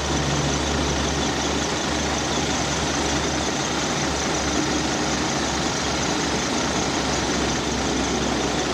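A bus's rear-mounted diesel engine idling with a steady, even hum, heard at the open engine bay.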